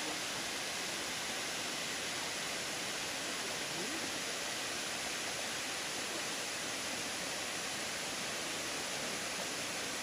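Waterfall cascading down a stepped rock face into a rocky creek: a steady, even rush of falling water.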